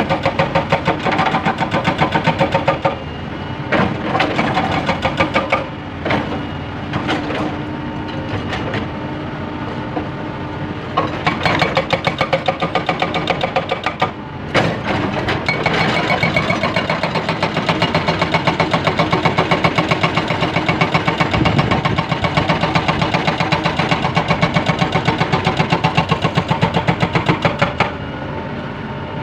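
Hydraulic breaker on a Caterpillar 320B excavator hammering limestone in rapid, even blows over the excavator's steady engine. The hammering stops briefly a few times in the first half, then runs without a break until near the end.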